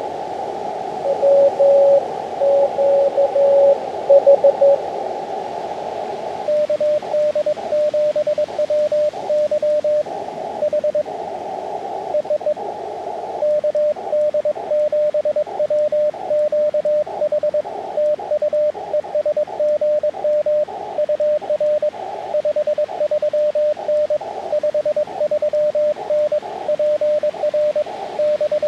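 Morse code from the receiver of an Elecraft KX2 ham radio transceiver, heard over a narrow band of receiver hiss. For the first five seconds or so one station's code is heard at a slightly lower pitch. From about six and a half seconds a steadier, slightly higher keyed tone runs on, with the hiss coming back in the gaps between characters, as a CW sidetone does while sending with break-in.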